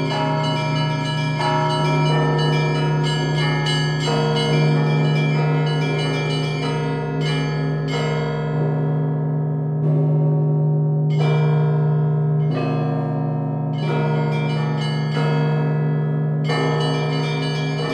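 Russian Orthodox church bells being rung in a full peal. A large bell's deep tone hums under quick, rhythmic strokes of the smaller bells. For several seconds midway the smallest, highest bells drop out, then they come back in near the end.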